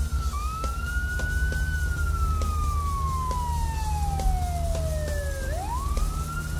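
Police car siren wailing: one slow cycle that rises, falls slowly for about four seconds, then climbs quickly back up near the end, over a steady low hum.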